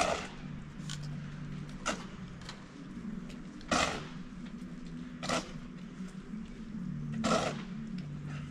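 Snow shovel scraping and digging into packed snow, five separate strokes about every one and a half to two seconds, over a steady low hum.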